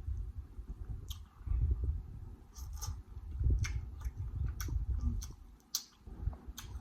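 Close-miked chewing of seafood-boil food, with a steady low rumble of jaw movement and scattered wet mouth clicks and lip smacks.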